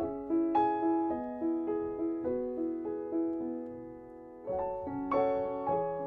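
Gentle piano music: a slow line of single struck notes over held chords, with a short lull about four seconds in before a new chord is struck.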